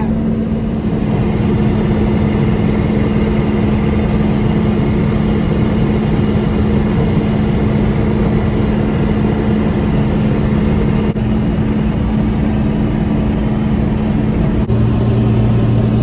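Combine harvester running steadily during corn harvest, a loud continuous mechanical drone with a strong steady hum. Near the end a deeper hum joins in.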